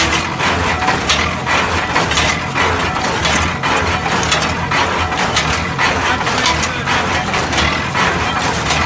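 Keystone cable-tool drilling rig running, its machinery knocking and clattering in a steady rhythm about once a second over a constant engine drone as it works the drill line up and down.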